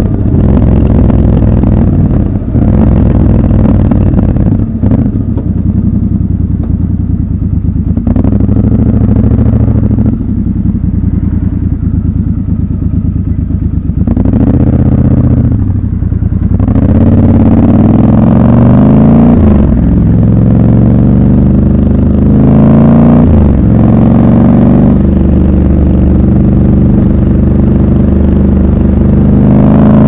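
Triumph Scrambler 1200 XC's parallel-twin engine running at low speed, then accelerating several times from about halfway, its pitch climbing and dropping back with each gear change.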